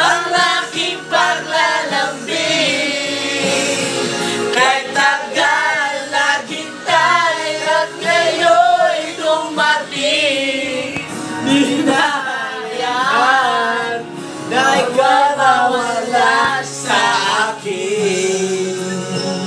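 A group of men singing a Tagalog song together, phrase after phrase with short breaths between.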